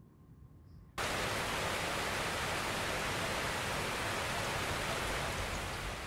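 A steady, even hiss of noise, like static or rushing air, cuts in abruptly about a second in and holds level, starting to fade near the end.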